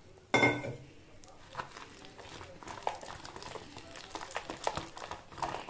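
Wire whisk beating thick gram-flour batter in a plastic bowl: irregular clicks, taps and scrapes of the wires against the bowl. A louder short sound comes about a third of a second in.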